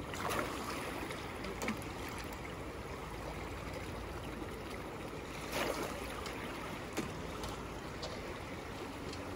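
Steady rushing of river current, the Kenai flowing past a wader standing in it, with a few faint short clicks scattered through.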